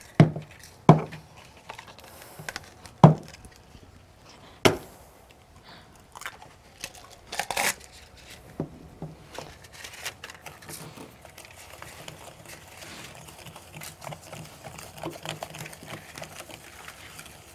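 Baking prep with bowl and utensils on a kitchen counter: four sharp knocks in the first five seconds, rustling and crinkling about halfway through, then a long run of light clicks and scraping.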